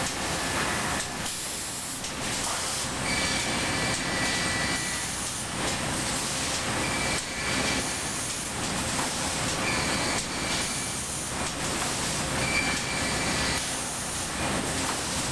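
Sawmill edger infeed machinery running: a steady mechanical din of chain transfers and feed rolls moving boards, with short high-pitched whines that come and go every couple of seconds.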